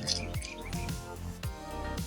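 Background music with pitched tones over a drum beat.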